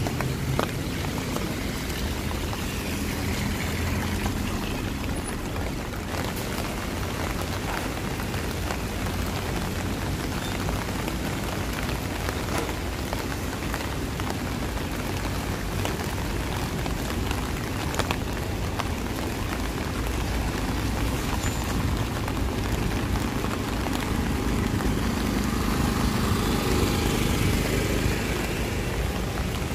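Rain falling steadily on the street, with a low steady hum of vehicle traffic beneath it that swells a little in the last few seconds.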